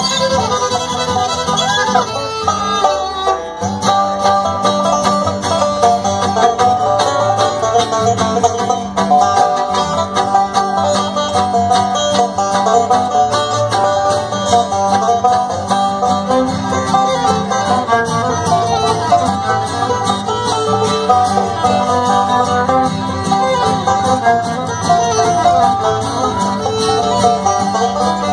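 Live bluegrass band playing: banjo, acoustic guitar, upright bass and fiddle together at a steady, driving tempo.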